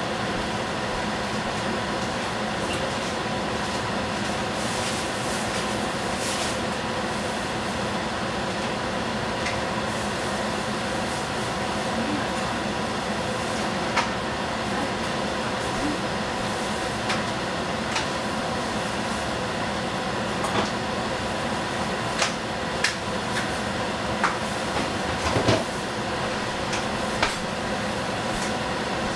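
Tomato and egg cooking under a lid in a stainless frying pan over a gas flame: a steady hiss with a faint hum, broken by scattered sharp pops that come more often in the second half.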